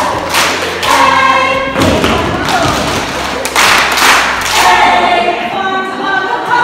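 A group of voices singing a dance song, with loud hand claps falling together about every two seconds.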